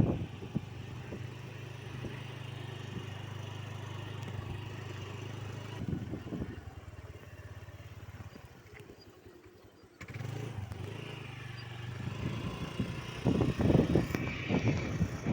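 A motor vehicle engine running steadily with a low hum, dying away about six seconds in and coming back about ten seconds in, with voices near the end.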